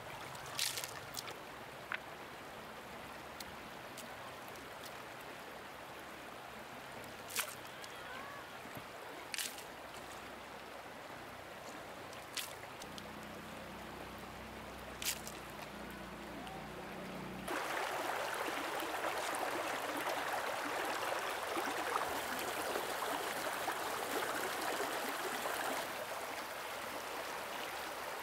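Stream water running and trickling, with about six sharp knocks scattered through the first half. About two-thirds of the way in, the water suddenly becomes louder and fuller.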